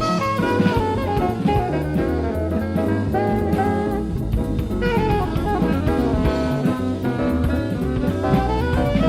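Live jazz-fusion band playing a funky groove: a saxophone line over drum kit and electric bass. This is a 1980s concert recording played back from cassette tape.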